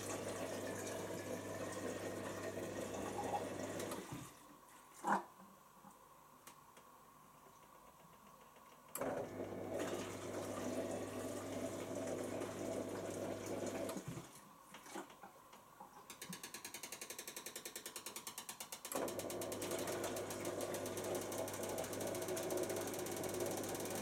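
Bosch Classixx dishwasher's drain pump pumping out the hot wash water in runs of about five seconds with pauses of about five seconds between them, a steady low hum with water noise over it. A fast ticking sounds during the second pause, before the pump starts again.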